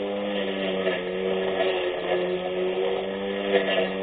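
24V brushless electric lawn mower's motor running while cutting grass: a steady whine over a hiss, dipping slightly in pitch now and then.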